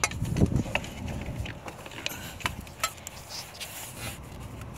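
Scattered light clicks, taps and rubbing from a hand and forearm working among plastic connectors and rubber hoses in an engine bay, feeling for a sensor's electrical connector to unclip it. The clicks come irregularly, about one every half second to second.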